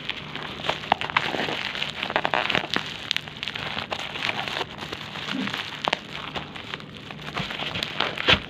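Plastic parcel packaging being handled and pulled open by hand: irregular crinkling and crackling with sharp snaps.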